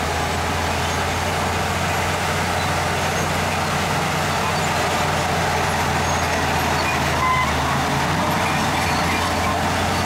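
Heavy diesel engine of earthmoving machinery running steadily under load, a constant low drone with broad mechanical noise over it.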